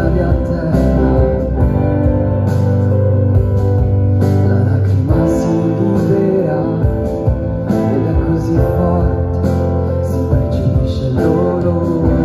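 Live music: an amplified acoustic guitar accompanying a singer's voice.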